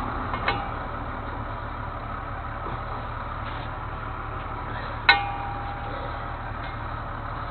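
A truck engine idles steadily, with two sharp metal-on-metal clanks that ring briefly: a light one about half a second in and a loud one about five seconds in.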